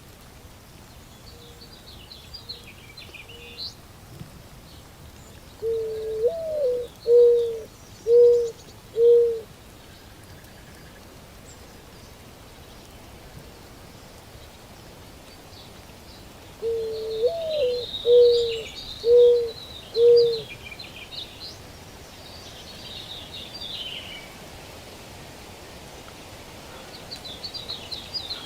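A dove cooing twice, each phrase a long slurred note followed by three short, even coos about a second apart. Small songbirds chirp faintly in the background.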